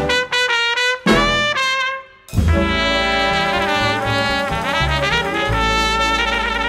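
A traditional New Orleans jazz band with trumpet, tenor saxophone, trombone, piano, double bass and drums plays short, separated ensemble hits. About two seconds in, the band holds a long sustained chord with cymbals washing underneath, and the horns waver near the end.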